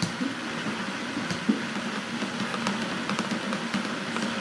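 Countertop blender running steadily at high speed, churning a thick chocolate shake of milk, ice cream, chocolate sauce and cocoa powder with no ice in it, while a tamper is worked down through the lid.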